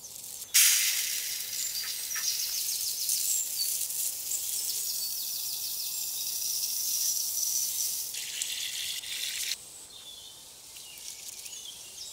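Dry basmati rice grains pouring from a plastic bag into a steel pot, a steady high hiss that starts sharply about half a second in and stops abruptly about nine and a half seconds in. Birds chirp faintly in the background.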